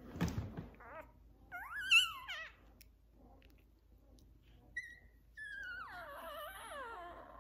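Newborn Labrador retriever puppy crying while being held for tube feeding: a short, wavering, high-pitched squeal about two seconds in and a longer cry that falls in pitch near the end. A bump from handling comes right at the start.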